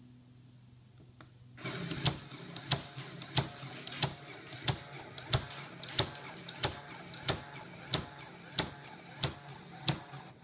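Automatic Lego gun running on its battery-driven Lego motor: a steady whir of motor and gears with a sharp snap about every two-thirds of a second as the rubber-band firing mechanism cocks and releases. It starts about a second and a half in and cuts off near the end.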